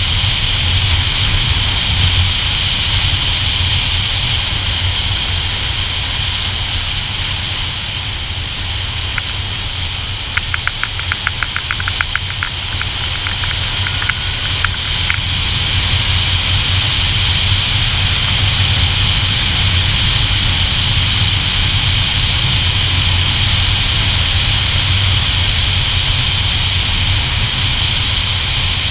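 Motorcycle engine running steadily as the bike is ridden along a road. About ten seconds in, a run of quick, evenly spaced ticks lasts a few seconds.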